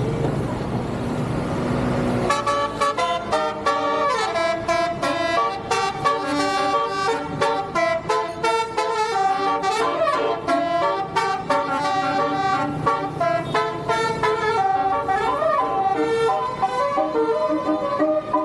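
A bus's basuri musical horn (the Indonesian 'telolet' horn) playing a rapid, loud melody of quick changing notes, starting about two seconds in over vehicle noise.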